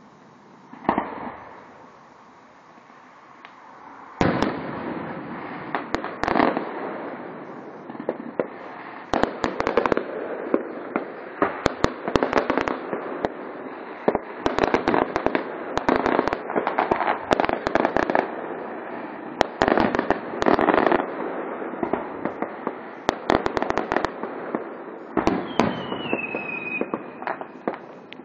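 Fireworks display: one aerial shell bursts about a second in, then from about four seconds a dense barrage of firework bangs and crackling, with a short whistle falling in pitch near the end.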